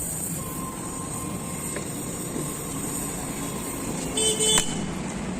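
Steady street traffic noise with a short vehicle horn honk about four seconds in.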